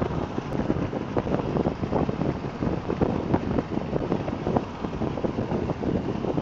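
Road and wind noise inside a moving car, with rough, uneven buffeting on the microphone.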